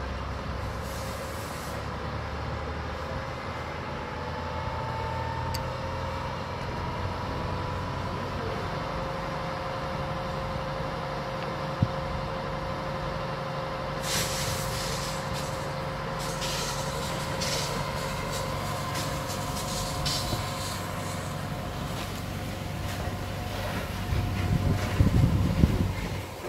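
A large vehicle's engine running steadily, most likely the fire engine standing by the burning car. From about halfway, irregular crackling and hissing from the car fire as it is put out, the smoke turning to white steam, with a louder low rumble near the end.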